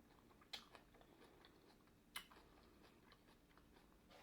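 Faint chewing of a mouthful of ramen noodles and kimchi: quiet, with soft mouth clicks, two of them sharper, about half a second in and just after two seconds.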